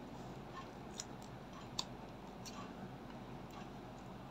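Clear slime mixed with clay, makeup and glitter being squished and pressed by hand, giving faint, irregular sticky clicks and pops.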